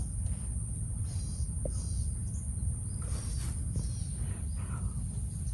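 Open-air ambience: a steady low rumble of wind on the microphone, with faint short bird chirps now and then and a constant high-pitched hiss.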